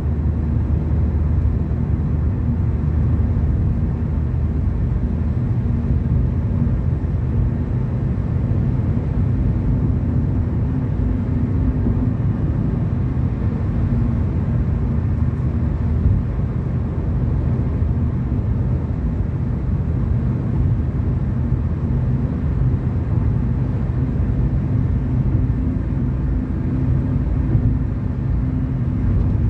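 Car driving on the road: a steady low rumble of road and engine noise with a faint hum.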